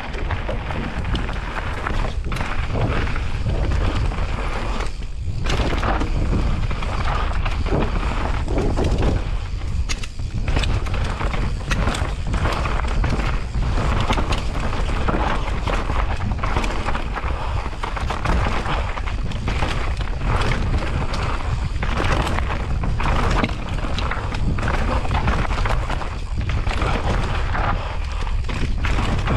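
Mountain bike riding down a dirt singletrack: tyres running over dirt and rocks, with frequent knocks and rattles from the bike and a heavy low rumble of wind on the microphone.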